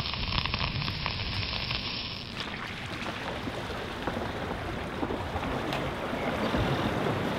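Water washing and splashing around a boat trailer's wheels as the trailer is backed into a lake, with wind noise on the microphone.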